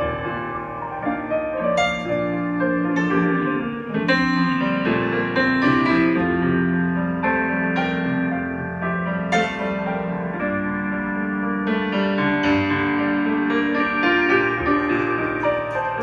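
Stage keyboards playing chords and melody notes, with many long held notes.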